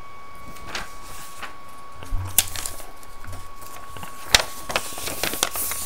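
Paper and camera handling noise: a worksheet being shifted on a desk, with several sharp clicks and knocks, the loudest about four seconds in, over a faint steady high whine.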